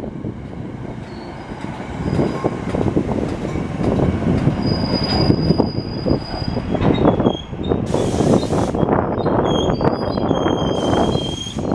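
NJ Transit Comet V passenger cars rolling into a station as the train slows, wheels rumbling and knocking on the rails. Thin, high squeals from the wheels and brakes come and go.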